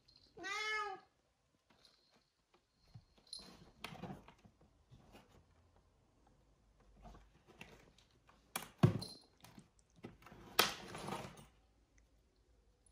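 A Bengal cat meows once, a short call that rises and falls in pitch. Scattered knocks and rustles follow, the loudest a sharp thump about nine seconds in.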